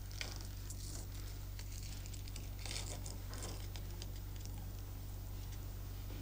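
Steady low hum of room tone with faint soft rustles and small clicks from gum being chewed and its paper wrapper handled.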